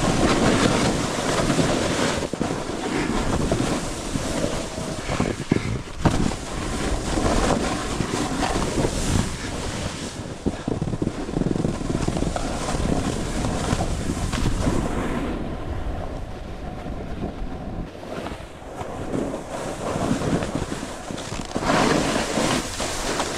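Snowboard sliding and scraping over warm, tracked-out snow with no powder, a continuous rushing scrape that swells and fades as the rider turns, mixed with wind on the microphone. A sharp knock about six seconds in.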